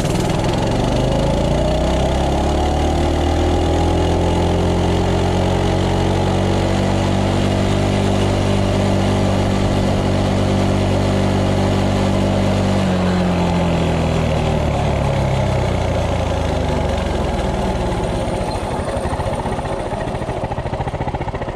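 Stock-exhaust 196cc single-cylinder four-stroke engine of a Coleman CT200U minibike at full throttle: it revs up from a standstill over the first few seconds and holds a steady pitch at a top speed of 30 mph. A little past halfway it winds down as the bike slows.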